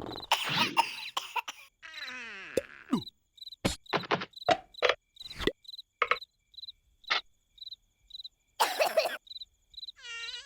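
Cartoon night-time soundtrack: evenly spaced high cricket chirps, about two a second, under a string of short wordless vocal squeaks and grunts and sharp knocks. One of the squeaks slides down in pitch about two seconds in.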